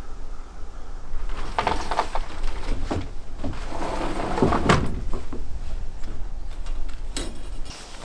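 A sliding glass door rolling open along its track with a low rumble and irregular rattling knocks, then footsteps as a person steps out onto a deck carrying something.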